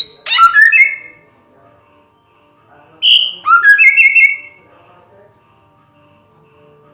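Samyong bird singing: two short phrases of loud, clear whistled notes that glide up and down, about three seconds apart.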